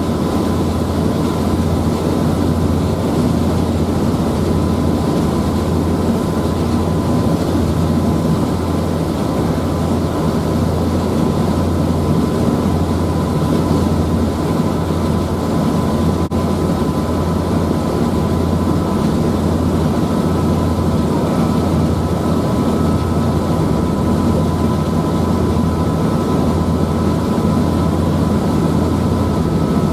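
Passenger ferry's engines running steadily, heard on board: a constant low drone under a rush of noise, with a faint steady high whine.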